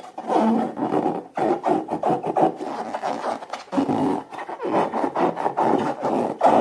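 Slime being stirred and mixed: a dense, continuous rubbing, scraping sound, with brief breaks about one and a half seconds in and again just before four seconds in.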